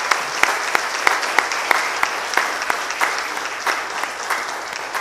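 A congregation applauding: many hands clapping together, with some single claps standing out sharply, the applause slowly dying down near the end.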